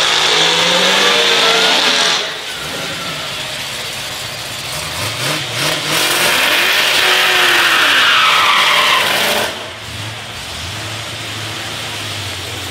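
Drag race cars on the strip. Loud engine noise drops off suddenly about two seconds in. About five seconds in an engine revs up sharply and runs loud at full throttle, then cuts off abruptly, leaving a steady low engine idle near the end.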